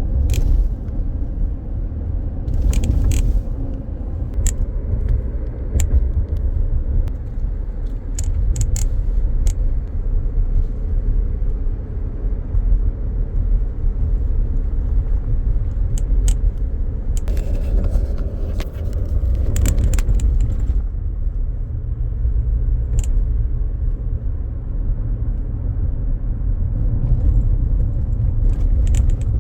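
Toyota RAV4 Adventure, a steady low rumble with scattered short clicks and rattles, bunched about 3 seconds in, around 8 to 9 seconds, and again from about 17 to 21 seconds. It is the strange sound the owner is recording, cause not identified.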